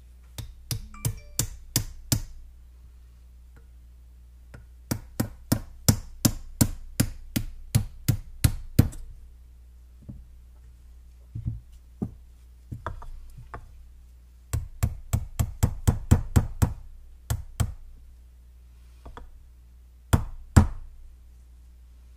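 Hammer tapping on a shotgun part during reassembly: quick runs of sharp taps, about three to four a second, in several bursts with short pauses between, ending with two harder blows.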